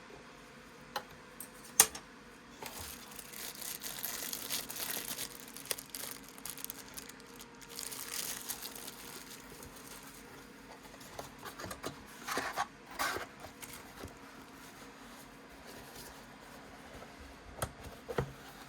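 Packaging being handled: wrapping crinkling and rustling in two stretches, with scattered sharp clicks and knocks, the loudest about two seconds in.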